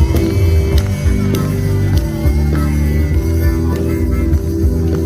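Loud music playing, with a strong bass line and sustained chords.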